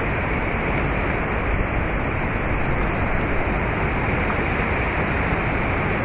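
Rushing river water: a steady, unbroken rush of flowing white water.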